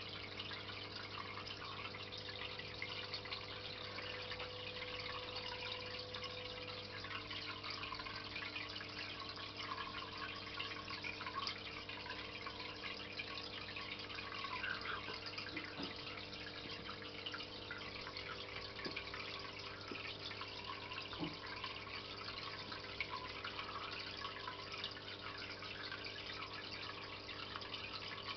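Aquarium pump running: a steady trickling and bubbling of water over a constant low hum, with a few faint ticks in the second half.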